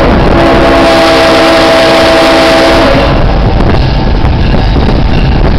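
Locomotive air horn sounding one long multi-note blast, ending about three seconds in, over the rumble of the moving locomotive and wind on the microphone, which carry on alone afterwards.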